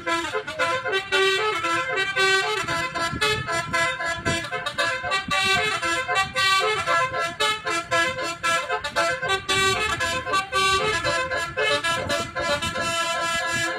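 A bus's basuri musical horn, a multi-tone "telolet" horn, plays a tune of stepped notes one after another without a break.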